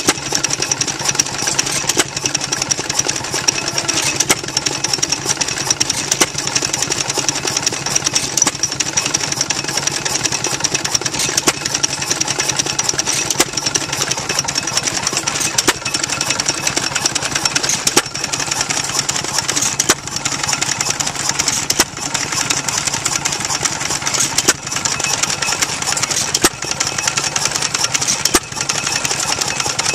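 Vintage twin-flywheel stationary engine running steadily, with a sharp knock about every two seconds over a continuous mechanical clatter.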